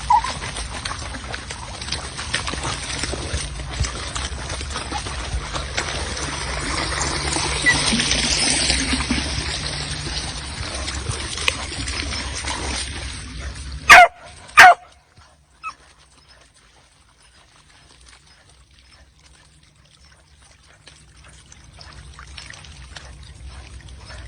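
A dog barks twice in quick succession a little past the middle. The barks are the loudest sounds here, over a steady rushing noise that stops just before them, with a fainter yelp shortly after.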